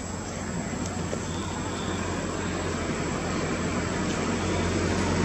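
Steady engine drone that grows slowly louder.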